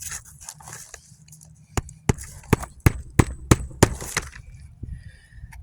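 Hand hammer nailing down an asphalt roof shingle: about seven sharp blows, roughly three a second, starting about two seconds in, after a moment of rustling.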